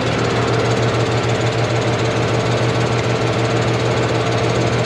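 Diesel tractor engine idling steadily, an even low pulsing hum with a steady mid-pitched tone over it.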